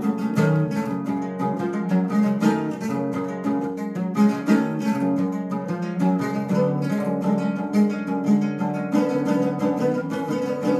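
Bandola played with a pick, a quick run of plucked notes and chords in an instrumental passage without singing.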